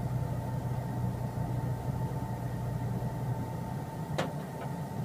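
A steady low mechanical hum with a faint steady whine, with a sharp click about four seconds in and a smaller one just after.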